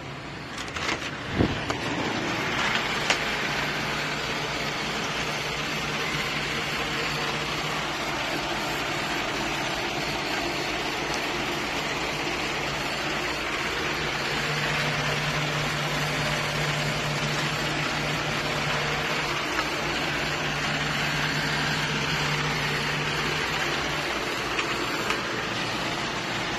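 Steady whir of ventilation fans in an indoor cannabis grow space, with a low hum that drops out near the end. A few handling knocks come in the first couple of seconds.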